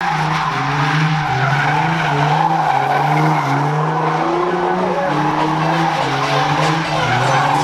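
Nissan 350Z drifting: its 3.5-litre V6 revs up and down repeatedly under a steady squeal of sliding rear tyres.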